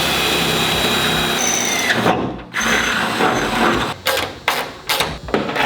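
Handheld power drill running in bursts: a steady whine for about two seconds that winds down, a second run after a brief pause, then several short pulls of the trigger near the end.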